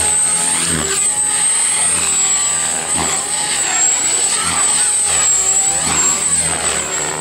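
Mikado Logo 400 electric RC helicopter in flight: a high-pitched whine from its motor and drivetrain over the rotor noise, holding nearly steady pitch as it manoeuvres.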